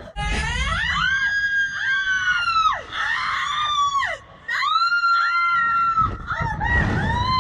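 Two women screaming on a slingshot reverse-bungee ride: long, high-pitched held screams, with a low wind rumble just after the start and again near the end.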